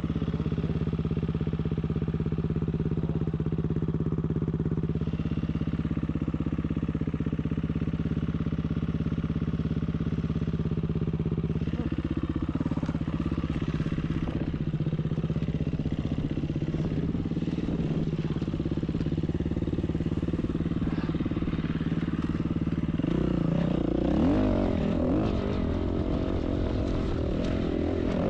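Dirt bike engine running steadily on the trail; in the last few seconds its note turns uneven, rising and falling as the throttle changes.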